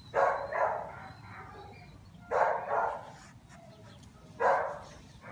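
A dog barking in short barks, mostly in pairs, coming about every two seconds.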